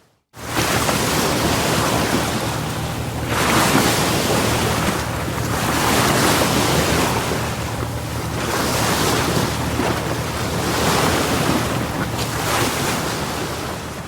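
Ocean waves sound effect: surf washing in with a steady rushing hiss that swells and ebbs every second or two. It comes in sharply just after a moment of silence and fades out near the end.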